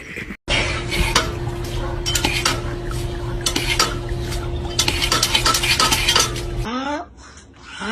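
Dense, irregular clattering of hard objects, like dishes and cutlery, over a steady hum, stopping abruptly about a second before the end; a rising pitched call follows near the end.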